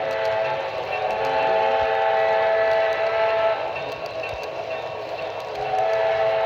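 Model steam locomotive's onboard sound system blowing a chime steam whistle: one long blast of several steady notes together, dropping away after about three and a half seconds, then a second blast starting near the end.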